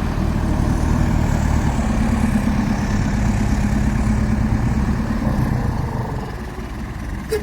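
Dump truck's diesel engine running steadily at low revs, easing off slightly near the end, with a short click just before it stops.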